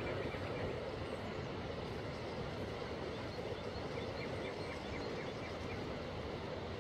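Steady outdoor background rush with a few faint, short high chirps scattered through it.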